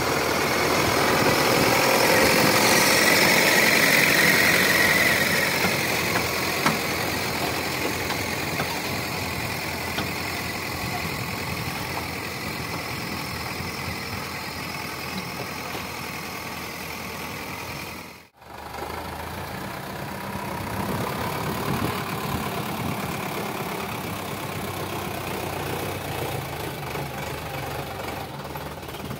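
Sonalika DI 750 tractor's diesel engine running steadily under load while it pulls a fully loaded trolley. It is loudest a few seconds in, and the sound cuts out for an instant about eighteen seconds in.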